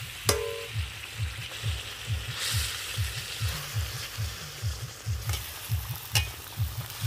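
Thick fish-curry gravy bubbling at a boil and sizzling in an iron karahi, with low plops several times a second, as fried tuna pieces are stirred in with a metal spatula. The spatula strikes the pan with a single ringing clink about a third of a second in, with lighter scrapes and taps later.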